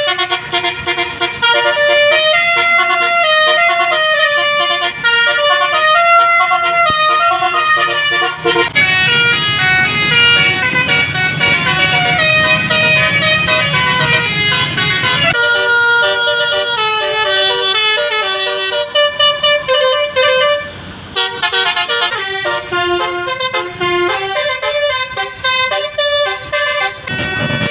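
A bus's 'telolet basuri' multi-tone musical air horn plays a melody, note after note. From about nine to fifteen seconds in, the rush of a bus passing close runs under the tune.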